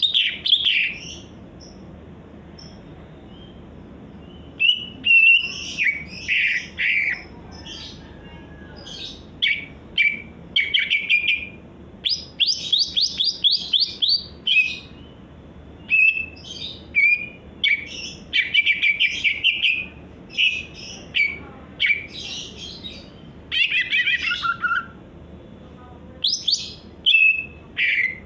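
Cucak ijo (green leafbird) singing: bursts of varied chirps, whistles and rapid trills in quick phrases, after a pause of a few seconds near the start.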